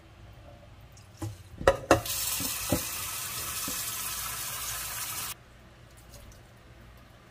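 Kitchen tap running into a frying pan of mung beans in a stainless-steel sink for about three seconds, then shut off suddenly. A few sharp knocks come just before the water starts.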